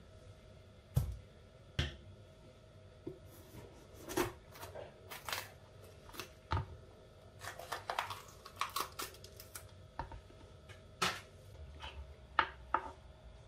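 Kitchen knife cutting bell peppers on a plastic cutting board: scattered knocks of the blade on the board, with a quick run of cuts a little past halfway.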